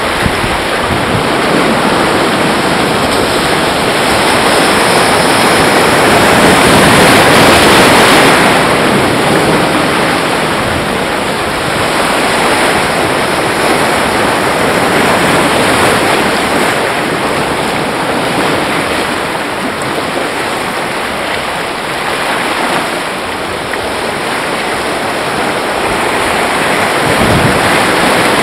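Sea surf washing in over shoreline rocks in swells that rise and fall, the loudest surge about seven seconds in, with wind buffeting the microphone.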